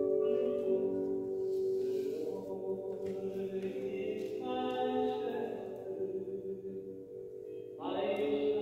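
Voices singing long, held, chant-like notes in worship. The singing thins out and then swells back louder near the end.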